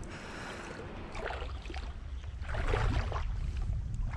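Footsteps wading through a shallow rocky tide pool, the water sloshing and splashing in a few swells, over a steady low rumble.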